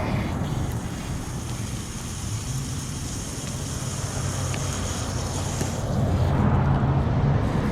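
Pressurised water spraying and hissing out of a 2-inch Hunter ICV irrigation valve's open bleeder port, a steady rushing noise that grows a little louder about six seconds in, with a low steady hum underneath.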